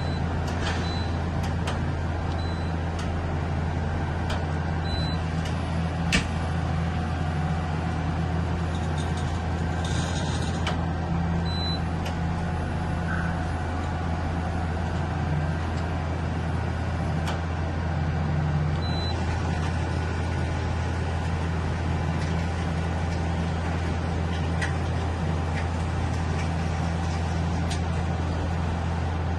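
Okuma Space Turn LB3000EX CNC lathe running under test with a steady low hum, with a few brief high beeps and a single sharp click about six seconds in.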